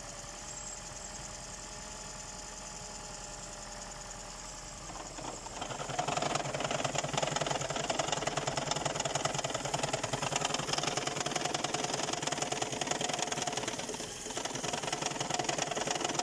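Engine running steadily. About five seconds in it gets louder, and a fast, even knock runs through it; this is the knock that comes on while the engine is charging and goes away at idle, with the oil clean and its level holding.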